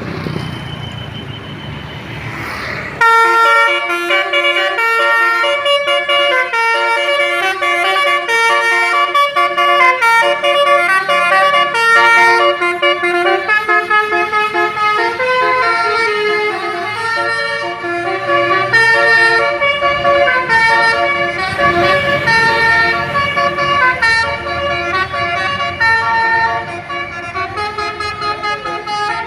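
Basuri telolet multi-tone bus horn playing a melody, its notes stepping quickly from pitch to pitch, starting about three seconds in. Before that, only engine and traffic noise.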